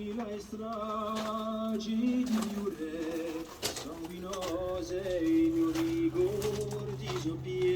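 Voices singing long held notes in harmony, several pitches sounding together, with wavering ornamented lines above them.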